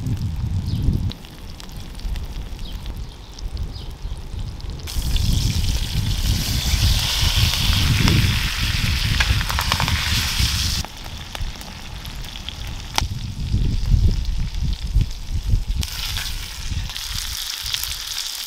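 Stuffed trout sizzling in hot fat in a cast-iron skillet over a campfire. The sizzle swells loudest in a long stretch through the middle and again near the end, over a low rumble, with a few sharp clicks.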